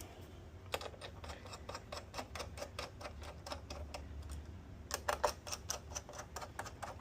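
Rapid, irregular light clicks and taps of small hard parts and tools being handled on an opened PS5 console, with a louder pair of clicks about five seconds in.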